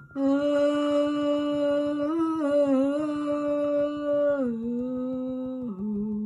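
A woman's voice chanting in long held tones. The tone wavers around the middle, then steps down lower about four and a half seconds in and again near the end.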